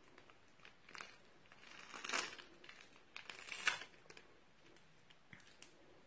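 Thin plastic piping bag crinkling as hands squeeze slime out of it, in two louder spells about two seconds in and past the middle, with a few light clicks in between.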